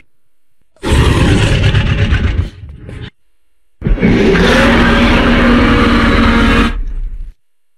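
Two Giganotosaurus roar-and-growl sound effects, film creature sound design: a rough, loud growl of about two seconds beginning about a second in, then after a short silent gap a longer, harsher roar of about three seconds that trails off near the end.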